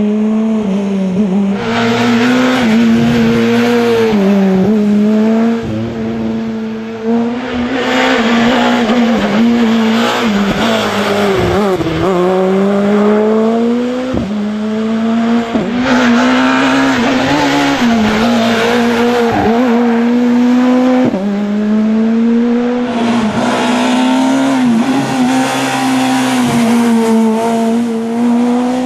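Skoda Fabia S2000 rally car's two-litre four-cylinder engine revving hard and held high, dipping briefly and climbing again many times as it shifts and brakes for corners.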